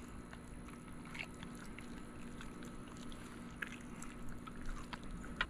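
Faint wet squishing and a few soft clicks of hands working a raw, deboned flounder, turning it back right side out.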